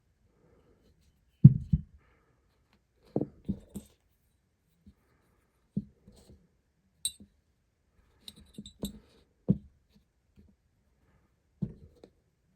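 Parts of a Heritage .22 LR being handled during disassembly: irregular light knocks and thumps of the gun and its parts set down on a surface, with a few sharp metallic clicks and clinks near the middle.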